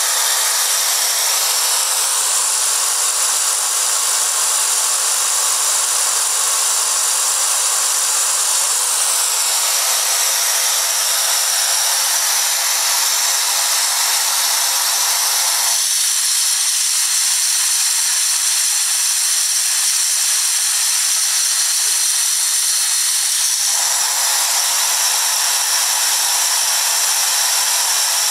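Compressed air rushing steadily through an open venturi nozzle onto a small fan: a loud, even hiss with high-pitched tones above it. For several seconds in the middle the hiss turns thinner and higher before filling out again.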